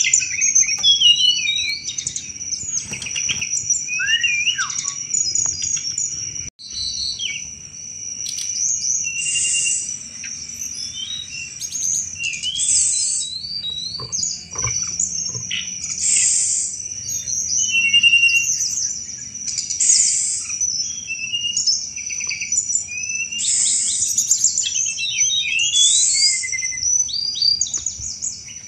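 Tledekan gunung singing its chattering 'cetrekan' song: quick chirps, slurred notes and rattles, with a louder burst every three to four seconds. A steady high-pitched ringing tone runs underneath.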